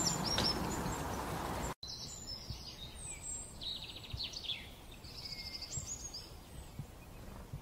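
Outdoor nature ambience of several small birds chirping, trilling and whistling. A louder hiss of background noise, with a few chirps in it, cuts off abruptly just under two seconds in, and the bird calls stand out more clearly after that.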